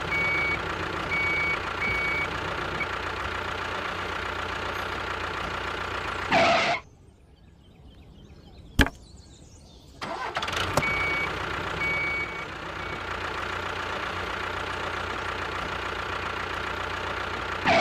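Construction-machine engine running steadily, with a short series of evenly spaced reversing beeps near the start and again partway through. A whoosh cuts it off about six seconds in, leaving a few quieter seconds with a single click. Another whoosh brings the engine back.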